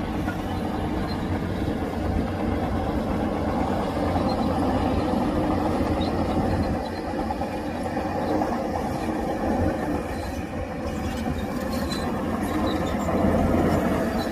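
Heavy diesel earthmoving machinery running steadily: a low, continuous engine rumble with some rattle, rising and falling a little in loudness.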